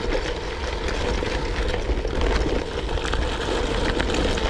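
Gravel bike rolling along a rough track: steady wind rumble on the camera's microphone with tyre noise, scattered clicks and rattles from stones and the bike, and a steady hum underneath.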